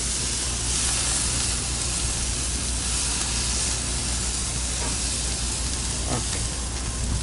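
Lamb and vegetables searing on a barbecue grill, sizzling with a steady hiss, over a low steady hum.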